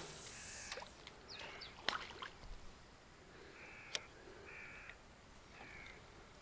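A bird calling faintly in a run of short calls, roughly one a second, with two sharp clicks in between.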